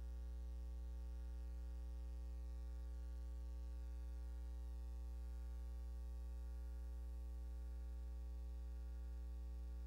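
Steady electrical mains hum with faint static hiss and no other sound, as on the soundtrack of a silent film.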